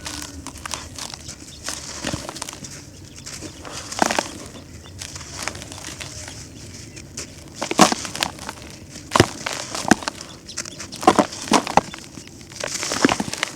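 Dry, crumbly concrete being crushed and broken apart: irregular sharp crunches and snaps over a low crumbling rustle, with the loudest crunches in the second half.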